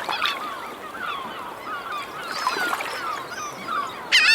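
A flock of seagulls calling over one another in short, overlapping squawks and cries, over a steady wash of small waves. A louder, closer gull call comes near the end.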